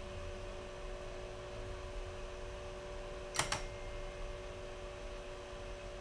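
Tandy 1000 TX power supply fan running with a steady hum, a fan noise the owner finds very loud in these supplies. Two quick clicks come about three and a half seconds in.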